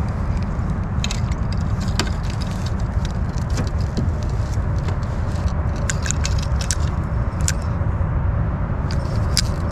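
A steady low rumble with scattered small clicks and rattles of a spinning reel and tackle being handled.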